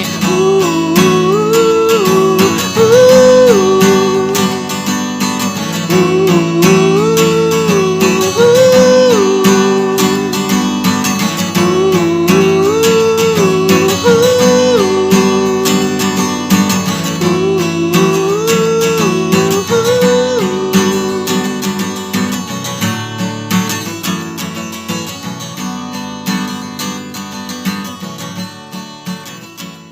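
Instrumental music: strummed acoustic guitar under a short melodic phrase that repeats about every six seconds. The phrase stops about twenty seconds in, and the music fades out gradually toward the end.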